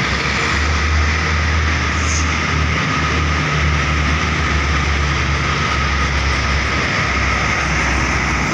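Road traffic with a heavy vehicle's engine rumbling close by, a deep steady drone over constant road and tyre noise.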